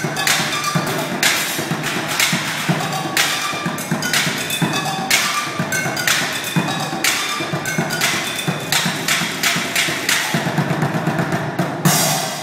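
Street bucket drumming: upturned plastic buckets and other improvised drums struck in a fast, busy rhythm of dense hits with frequent louder accents.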